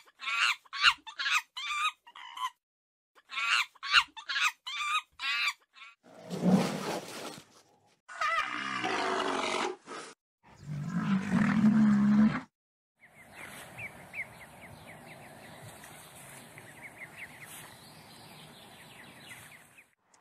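A run of different animal calls, edited one after another. First come two quick volleys of short, high chirping calls. Then three louder, longer calls follow, the last one deep. Near the end there is a quieter stretch of faint chirps over a soft hiss.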